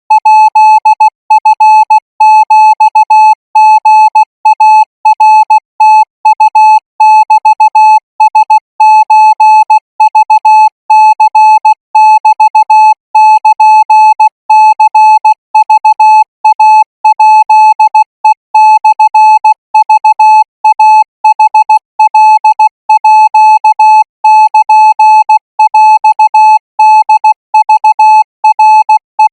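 Thai Morse code practice signal sent at 20 words per minute: a single steady beep keyed on and off in short dots and longer dashes, without a break.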